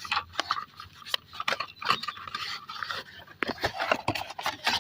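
A plastic syrup bottle and its packaging being handled and opened: irregular scraping, crinkling and sharp clicks as the seal and cap are worked off.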